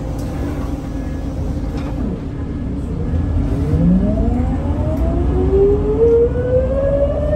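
Scania L94UB city bus heard from inside the cabin: a low diesel rumble, and from about halfway a drivetrain whine that rises steadily in pitch and grows louder as the bus accelerates.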